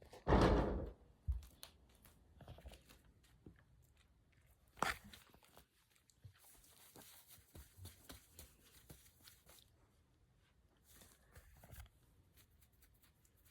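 A Jindo dog snoring in its sleep. There is one loud snore just after the start and another, sharper one about five seconds in, with faint clicks and rustles between.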